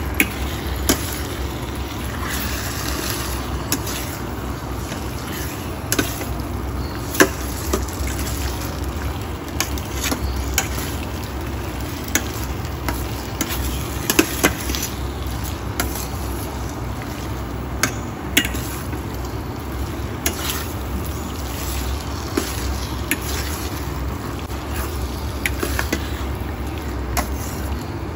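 Chicken pieces sizzling in a stainless steel wok as they are stir-fried toward half cooked, with a metal spatula scraping and knocking against the pan every second or two.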